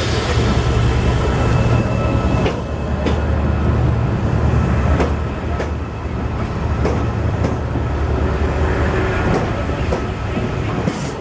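A train rolling past with a steady low drone, its wheels clicking over the rail joints at irregular intervals.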